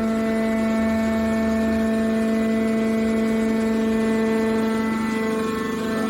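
Hydraulic can baler's power unit running with a steady pitched hum.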